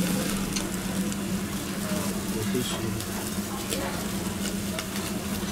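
Meat and offal sizzling on a tabletop yakiniku grill, with a few light clicks of metal tongs, over a steady low hum and faint background chatter.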